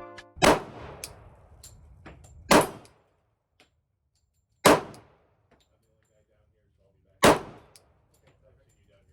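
Four handgun shots fired slowly, about two seconds apart, each a sharp crack with a short echoing tail.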